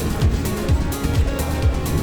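Electronic music with a steady kick drum beat, about two beats a second, and crisp high percussion over it.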